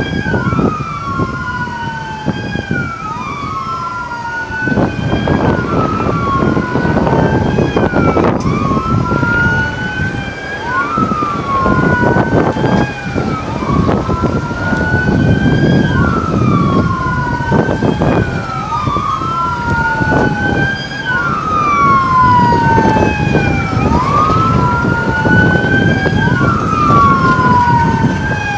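Several police car sirens wailing, their pitch rising and falling about every two and a half seconds and overlapping out of step, over a low rumble of vehicles.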